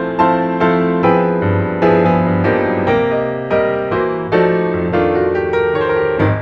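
Background piano music: a melody of struck notes, about two or three a second, over held low notes.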